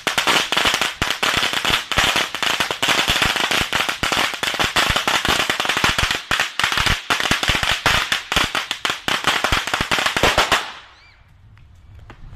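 A long string of ten-thousand red firecrackers going off in a rapid, unbroken crackle of bangs, which cuts off abruptly near the end as the string burns out.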